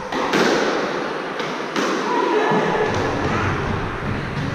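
Squash rally: a string of sharp hits as the ball is struck by rackets and smacks off the court walls, echoing in the enclosed court, with players' footsteps on the wooden floor.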